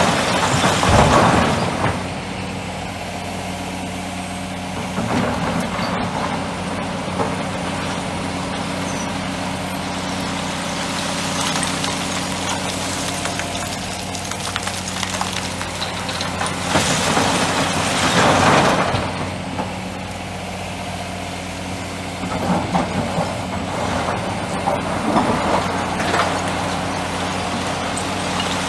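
Large diesel engines of a hydraulic excavator and an articulated dump truck running steadily, with loads of quarry rock crashing and rattling into the truck's steel bed several times, loudest partway through. Near the end, the bucket scrapes and digs into the rock pile.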